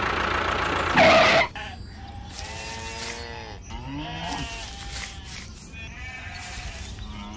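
A short loud noisy burst about a second in, then a series of wavering, bleat-like calls, several in a row.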